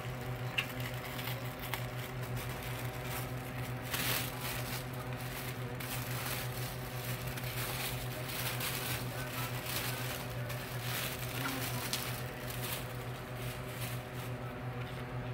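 Tissue paper and packaging rustling and crinkling as they are handled, in scattered bursts, over a steady low hum.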